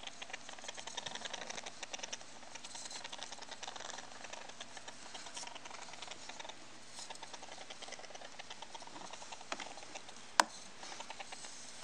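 Rapid, faint clicking from a young Campbell's dwarf hamster, coming in uneven runs. This is the noise the owner has heard since adopting her and suspects may be a respiratory condition rather than vocalizing. One sharp single click sounds about ten seconds in.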